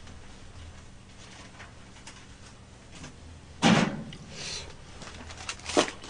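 Quiet room tone, then about three and a half seconds in a sharp knock and clatter as a microwave door is handled and a plate of reheated pizza is taken out, followed by a couple of lighter knocks.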